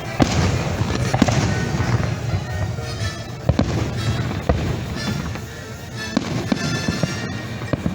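Fireworks going off in a rapid series of bangs and crackles, with music playing underneath.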